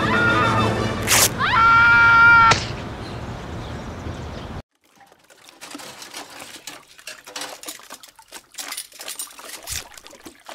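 Cartoon soundtrack: music with a gliding cry and a held pitched tone, cutting off abruptly about four and a half seconds in. Then a quiet stretch of faint, irregular crackling.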